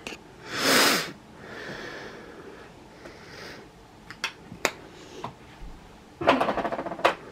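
A woman laughing in breathy bursts, one near the start and a quicker pulsing one near the end, with a few light clicks in between.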